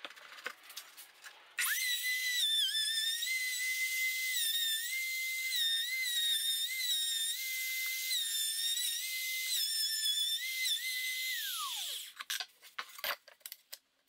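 Palm router switched on about a second and a half in, its high whine dipping in pitch now and then as the bit bites into plywood while it is swung around a trammel to deepen a circular groove. Near the end it is switched off and the whine falls away, followed by a few light clicks and knocks as the router is handled.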